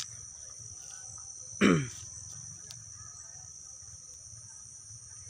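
Steady chorus of night insects such as crickets, a high unbroken trill. About a second and a half in, one short, loud cry drops sharply in pitch.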